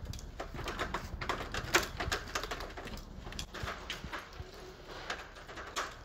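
Climbing gear being handled: irregular clicks and rattles of a short safety line and its metal carabiner being clipped on at the tree trunk, with one sharper click about two seconds in.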